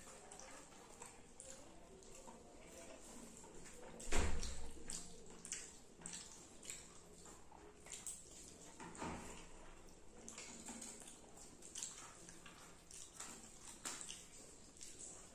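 Close-up eating sounds of someone eating rice with fish curry: wet chewing, lip smacks and small clicks at an uneven pace, with one heavier thump about four seconds in.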